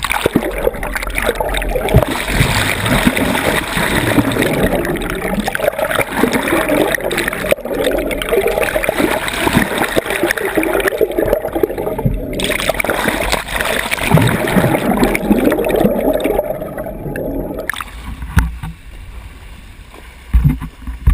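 Loud, choppy splashing and rushing of seawater that cuts off abruptly near the end.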